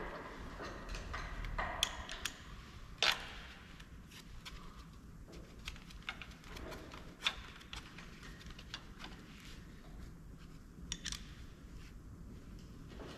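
Scattered light metallic clicks and taps of a hand wrench working the timing cover bolts, with the sharpest click about three seconds in.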